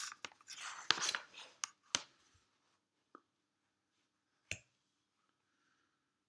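A sheet of paper rustling and sliding on a desk for about two seconds, with a few sharp clicks. This is followed by a faint tick, then a single sharp tap about four and a half seconds in.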